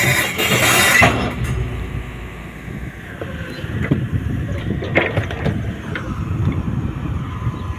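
Hyundai 350LR long-reach crawler excavator's diesel engine running with a steady low rumble while it is loaded onto a trailer, with a few sharp knocks. A loud hiss cuts off suddenly about a second in.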